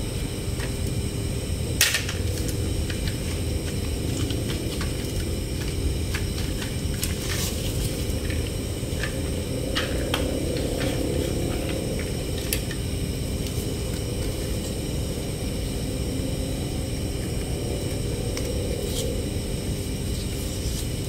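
Scattered clicks and clacks of hard plastic toy vehicle parts being handled, the sharpest about two seconds in, over a steady low background rumble.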